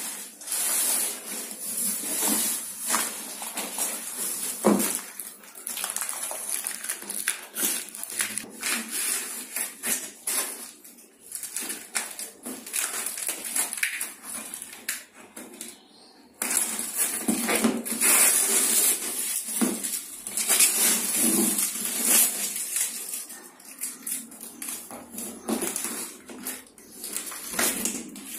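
Scissors cutting through a corrugated cardboard box and its packing tape, with the cardboard scraping and rustling under the blades and hands. The sound goes through a lull and restarts abruptly about sixteen seconds in.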